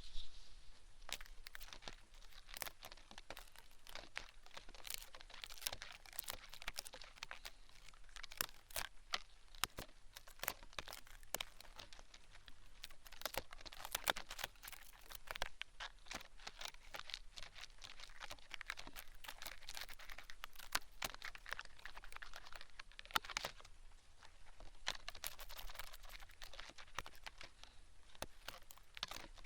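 Fine horsehair strands brushed in and around the ear of a binaural microphone, giving a dense, irregular crackling and scratching that swells and fades.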